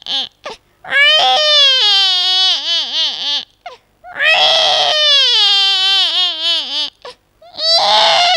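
A woman's voice imitating a human baby crying: three long wails, each falling in pitch and wavering at its end, with short breaks between them.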